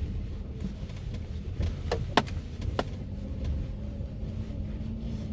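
Lada Granta's engine and manual gearbox running in first gear under way, a steady low drone inside the closed cabin with a faint tone that rises slightly, and no obvious gearbox whine. A few sharp clicks come about two to three seconds in.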